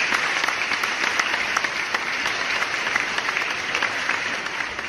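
Applause: many hands clapping at a steady level, starting to fade out near the end.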